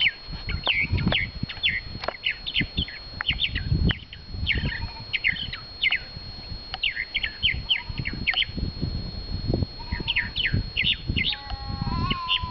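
Tropical mockingbird singing in a tree: phrase after phrase of quick, sharp, down-slurred notes, over a steady high-pitched tone and irregular low rumbles. Near the end a sheep or goat starts to bleat.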